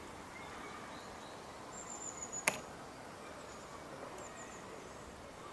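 Quiet outdoor ambience with faint, short, high bird chirps and one sharp click about two and a half seconds in.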